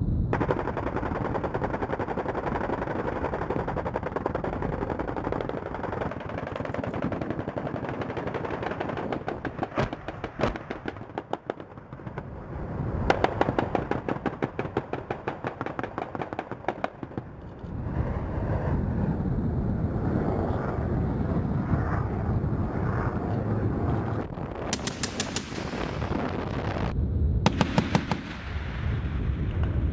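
Helicopter rotor and engine noise at a distance, then several bursts of rapid fire from an AH-1Z Viper's M197 three-barrel 20 mm rotary cannon, each a fast string of shots lasting one to a few seconds.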